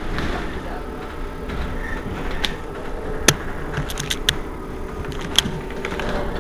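Irizar i2e battery-electric bus standing at a stop, its electric drive and auxiliaries giving a steady hum. Several sharp clicks and knocks come in the middle, the clearest about three seconds in.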